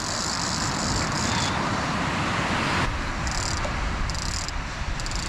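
Steady roar of surf and wind, with rapid clicking from a big Shimano Tiagra shark reel near the start and in three short bursts later, as the rod is pumped and the line is reeled in against a heavy shark.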